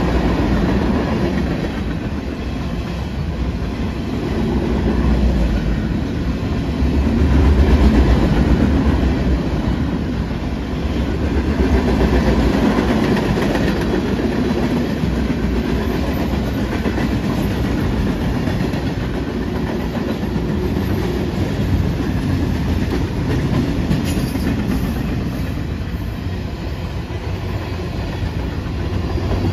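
Freight cars of a long train rolling steadily past: the rumble and clatter of steel wheels on the rails, from intermodal container flatcars and flatcars loaded with military trucks.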